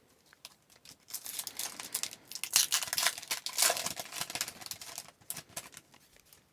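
A trading-card pack's wrapper being crinkled and torn open. A dense run of crackling starts about a second in and fades near the end.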